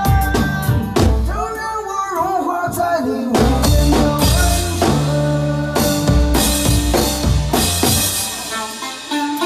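Drum kit played in time with a song: kick drum, snare, toms and cymbals hit steadily under the music, with singing over it.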